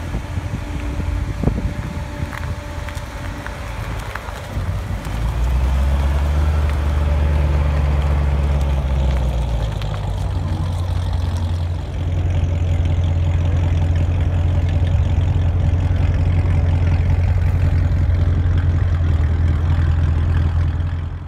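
Chevrolet C7 Corvette's V8 running as the car pulls away at low speed, followed by a steady, deep idle from a parked C7 Corvette heard close to its exhaust.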